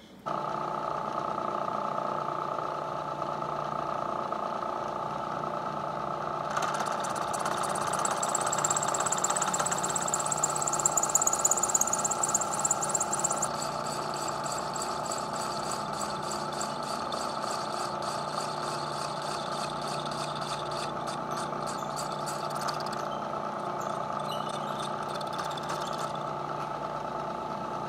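Lagun vertical milling machine running with an insert shell mill taking a light pass of about 20 thousandths across thin aluminum, over a steady machine hum. About six seconds in, the cutting gets louder with a high hiss. From about halfway it turns to a finer, even high-pitched chatter, which dies away in the last few seconds.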